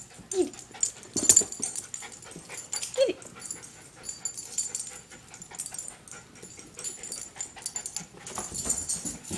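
Bichon frise giving short falling whines, about half a second in and again at about three seconds, amid scrabbling and clicking as it excitedly chases a laser dot across carpet.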